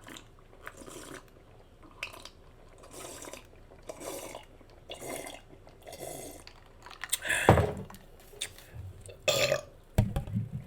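Close-miked chewing and mouth smacking, about one soft smack a second, then a loud burp about seven seconds in, followed by more mouth sounds near the end.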